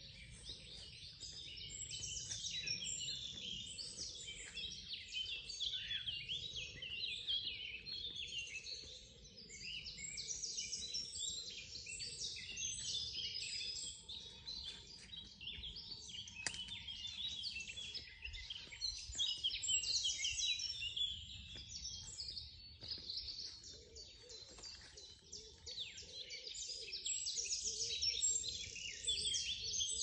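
Several songbirds singing at once, a dense chorus of overlapping chirps and trills that swells and ebbs but never stops.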